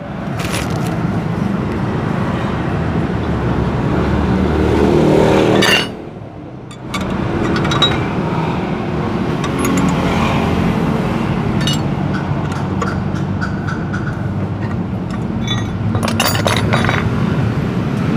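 Yamaha Mio Z scooter's single-cylinder engine running with the CVT cover off, as it is tested for the 'tek tek' rattle from the CVT. A few sharp metallic clinks come through, and the engine drops off briefly about six seconds in, then picks up again.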